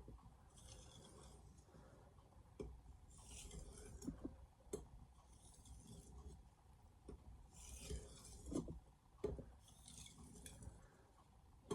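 Steel knife blade stroked across a diamond sharpening plate: five faint, gritty rasping strokes about two seconds apart, with a few light clicks between them. The blade is being worked to raise and remove a stubborn burr on Chinese stainless steel.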